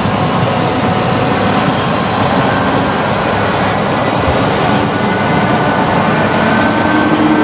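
TER push-pull train hauled by an SNCF BB 25500 electric locomotive running close by: a loud, steady rail rumble, with faint steady tones coming in near the end.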